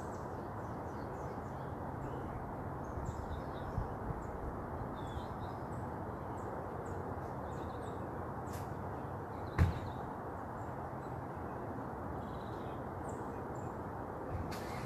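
Outdoor ambience: a steady background rush with faint, short bird chirps scattered through it, and one sharp knock about two-thirds of the way through.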